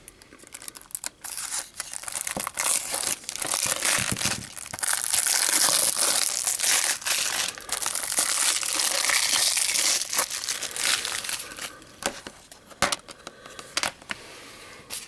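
Plastic shrink-wrap being torn and crinkled off a Blu-ray case, dense and loudest through the middle, then a few separate sharp clicks near the end.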